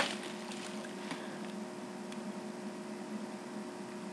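Quiet room tone: a steady electrical hum with a low hiss, with a few faint ticks.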